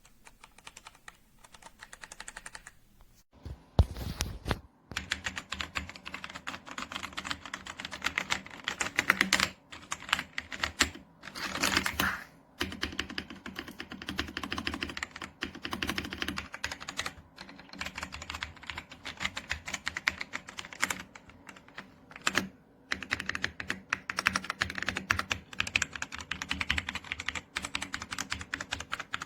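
AJAZZ AK820 mechanical keyboard being typed on: rapid key clicks in quick runs with short pauses, faint for the first few seconds and then louder.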